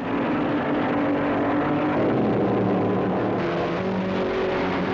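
Racing car engines running at speed as the cars go by, a steady drone whose pitch drops about two seconds in and shifts again later.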